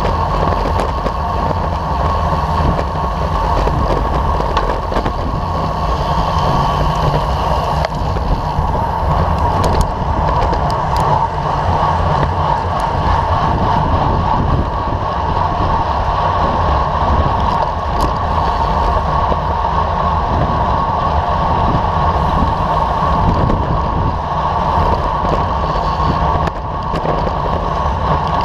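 Steady wind rush over the microphone of a bicycle-mounted camera moving at racing speed, with road and tyre noise underneath. A few brief clicks cut through it.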